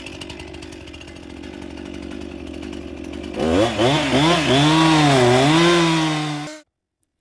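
Two-stroke chainsaw running at low speed for about three seconds, then revved hard, its pitch swinging up and down before holding high as it cuts the open face notch in a leaning tree. The sound stops abruptly near the end.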